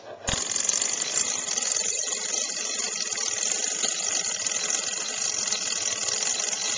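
Antique telegraph sender (messenger call box) ringing after its handle is turned: a click, then a fast, continuous mechanical ringing and rattling for about six and a half seconds that cuts off suddenly.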